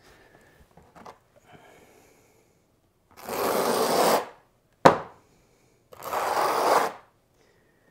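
Two harsh scrapes, each about a second long, with one sharp knock between them: a hand tool and bricks scraping over thinset mortar and cement board while brick veneer is laid. Faint small scuffs and taps come before them.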